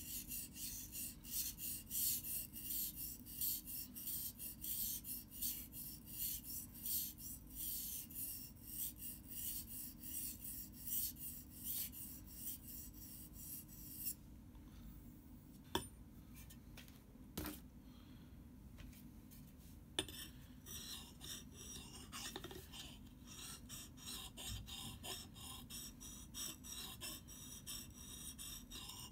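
Steel blade of a survival knife pushed back and forth on a wet whetstone: a rasping scrape, stroke after stroke, about two a second. About halfway the strokes stop for several seconds, broken by a few sharp knocks, then the scraping starts again.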